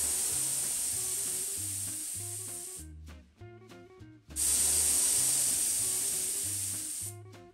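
Compressed air being let off from the air compressor and air-nailer hose after the compressor is switched off, in two long hisses: the first fades out about three seconds in, and the second starts suddenly just after four seconds and fades the same way.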